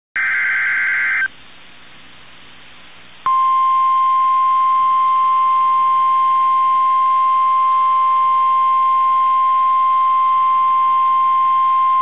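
NOAA Weather Radio Emergency Alert System alert tones: a burst of SAME digital header data about a second long, then, after a short pause of radio hiss, the steady single-pitch 1050 Hz Warning Alarm Tone starting about three seconds in.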